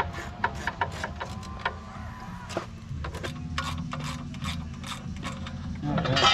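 Ratchet clicking in repeated runs of quick strokes, with a low steady hum underneath.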